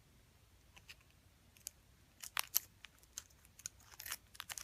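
Clear plastic packet of candy paste crinkling and clicking as it is handled. Scissors snip into it near the end.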